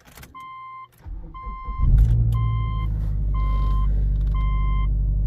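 Subaru Outback's boxer engine cranking over on the starter, catching about two seconds in and settling into a steady idle. Over it, the seatbelt reminder chime dings about once a second, five times.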